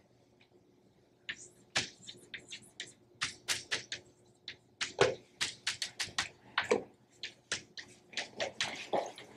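Chalk writing on a blackboard: a quick, irregular run of sharp taps and scratches, starting about a second in.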